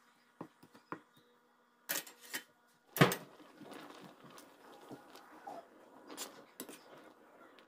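A metal ladle clinking and knocking against a stainless steel pot while noodles are stirred in broth, with the loudest knock about three seconds in. After it the soup boils with a low, steady bubbling and occasional light clinks of the ladle.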